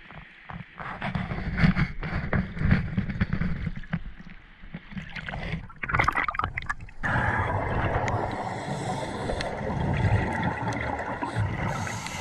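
Sea water sloshing and splashing against a handheld camera at the surface, with knocks; about six seconds in the camera goes under and the sound turns to a steady, muffled underwater rush with bubbling from a diver's regulator.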